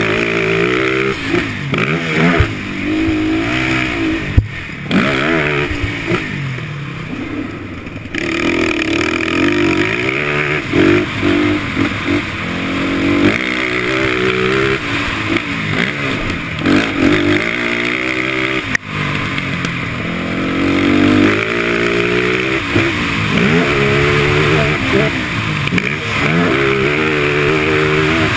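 Motocross dirt bike engine revving up and dropping back again and again as the bike accelerates and slows over the track, with a few sharp knocks in the first few seconds.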